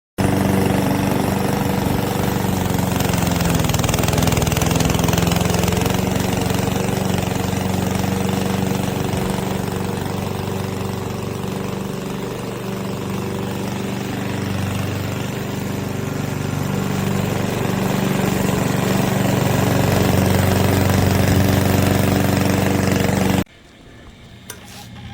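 PowerSmart 21-inch gas push mower's 144cc OHV single-cylinder engine running steadily, its level and pitch sagging a little midway and recovering. It cuts off suddenly near the end.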